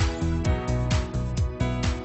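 Background music with a steady drum beat over bass.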